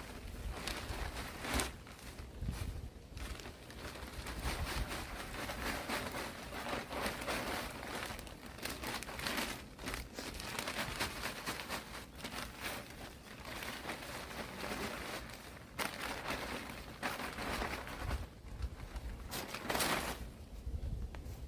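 Potting soil being handled and spread by hand over a planter bed: irregular rustling and scraping, with a few sharp clicks, the loudest near the end.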